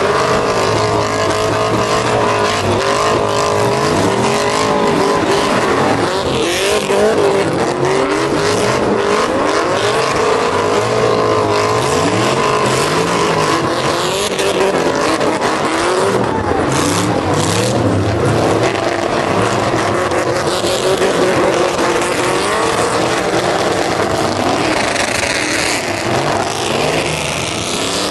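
Several pickup trucks doing burnouts at once. Their engines rev hard, in pitches that rise and fall over and over, above the constant hiss and squeal of spinning tires.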